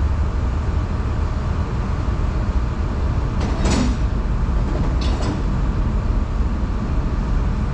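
Steady low machinery rumble, with two short knocks about three and a half and five seconds in.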